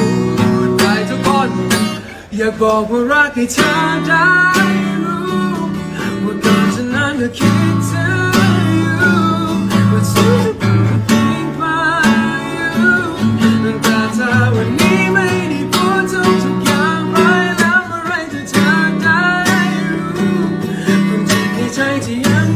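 A man singing while strumming a steel-string acoustic guitar, with a brief dip in the playing about two seconds in.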